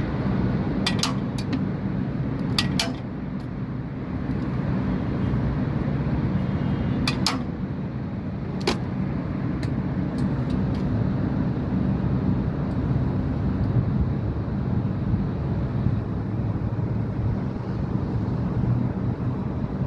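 Large air-conditioning unit with a newly fitted 10-ton compressor running with a steady low hum. A few short sharp clicks or taps come about one, three, seven and nine seconds in.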